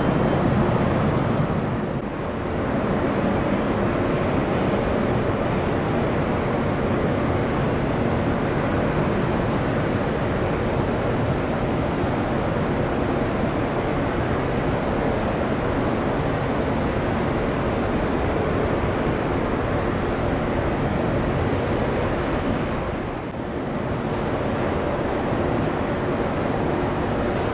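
Steady jet engine noise from airliners at an airport: a continuous rumble and hiss with a faint steady whine, dipping briefly twice.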